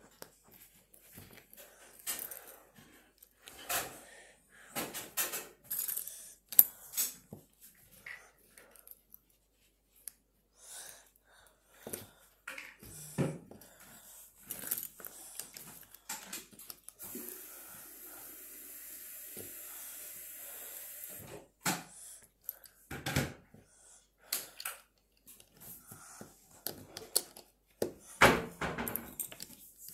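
Plastic Lego bricks clicking and clattering as they are handled, sorted and pressed together, in many short irregular clicks. A few seconds past the middle a steady hiss runs for about four seconds.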